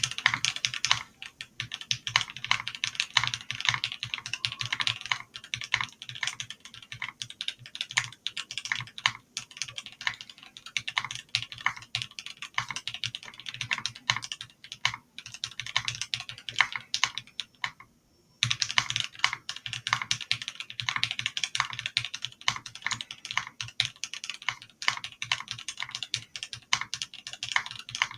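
Continuous typing on a Transition Lite TKL mechanical keyboard with Alpaca V2 linear switches, a polycarbonate plate and Lelelab Crystal ABS keycaps: rapid, uneven keystrokes, with a brief pause a little over halfway through.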